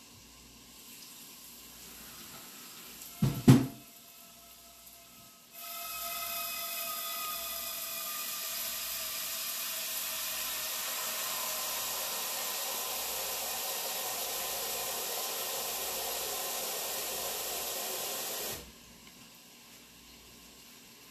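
A sharp thump a little over three seconds in, then a kitchen tap running water into a sink for about thirteen seconds before it is shut off abruptly.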